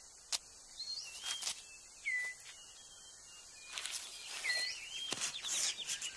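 Dry leaves crackling and rustling in short bursts as a male six-plumed bird of paradise clears debris from his display court on the forest floor. Around this, forest birds give short whistled calls that glide up and down in pitch, and a fast ticking trill begins near the end.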